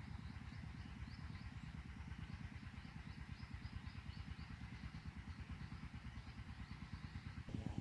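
A small engine running steadily with a fast, even low thrum, and faint repeated high chirps above it.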